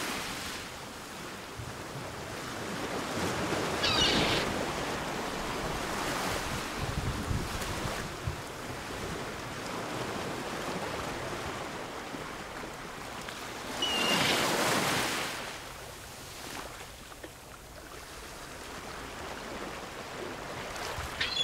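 Sea washing against a rocky shoreline, with wind buffeting the microphone; the wash swells louder about four seconds in and again about fourteen seconds in.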